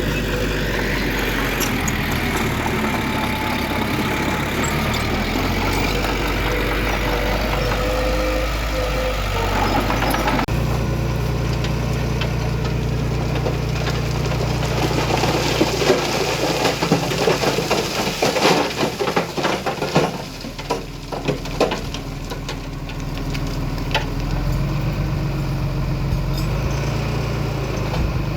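Diesel engines of heavy earthmoving machinery running steadily. About ten seconds in, the engine sound changes abruptly, and a run of sharp metallic clanks and knocks follows for several seconds.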